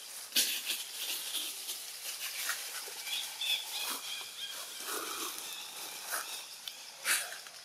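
Dry leaf litter crackling and rustling in short irregular bursts as long-tailed macaques move and forage over it.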